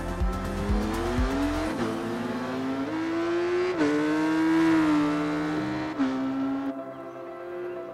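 Motorcycle engine revving up through the gears: the pitch climbs, drops at a shift about two seconds in, climbs again to a second shift near four seconds, then eases down and settles. Music with a steady beat plays under it at first, the beat stopping about two seconds in.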